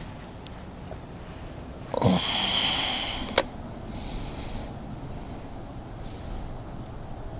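A cast with a baitcasting rod and reel: a sudden swish of the rod about two seconds in, the spool whirring for just over a second as line pays out, then one sharp click as the reel is engaged.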